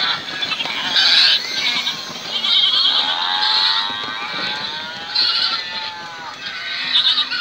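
Recorded goat and sheep bleats played through small speakers in sound-fitted model livestock wagons, several calls overlapping one after another.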